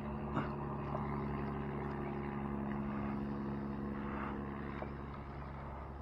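A steady, low engine hum at an even pitch, easing slightly near the end.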